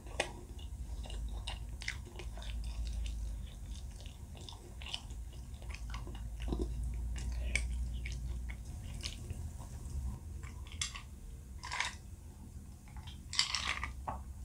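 Close-miked chewing and biting of spicy fried noodles and waffle-iron-pressed food, with many small wet mouth clicks and a few louder crunchy bites near the end.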